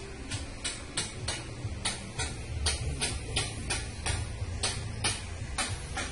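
Steady ticking, about three sharp ticks a second, over a low steady hum.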